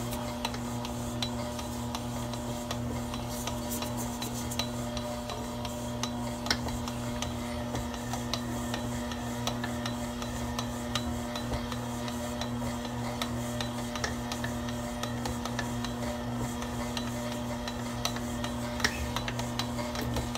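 Stand mixer running steadily at low speed, its motor humming with scattered light clicks as the dough hook kneads a stiff, still-dry bread dough in the steel bowl. It is kept on the lower speed so as not to strain the mixer.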